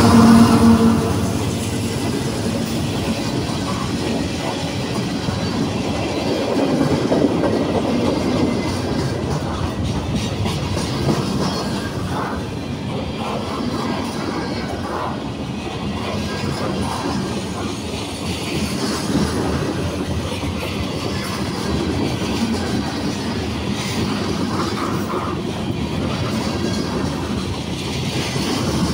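CSX mixed manifest freight train passing close by: the diesel locomotive's engine drone fades out about a second in, leaving the steady rumble and clatter of freight car wheels rolling over the rails.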